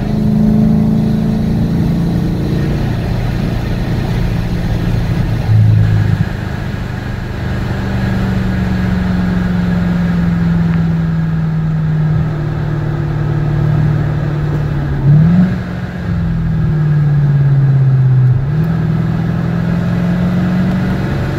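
Corvette V8 engine heard from inside the cabin while driving on track and slowing from about 60 to 30 mph. The engine note sinks gradually for several seconds, rises and falls quickly about fifteen seconds in, sinks again, then climbs near the end.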